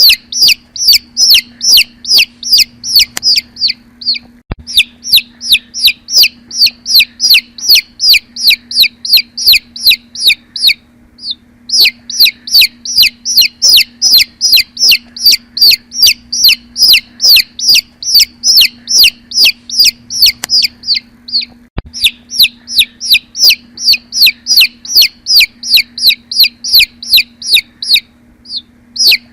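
Baby chicks peeping: a steady stream of short, high, slightly falling peeps, about three a second, broken by a few brief pauses.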